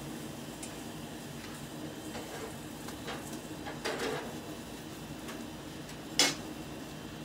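Metal grilling utensil scraping and clattering on a gas grill, with a short scrape about four seconds in and one sharp metal clank a little after six seconds, over a steady low hum.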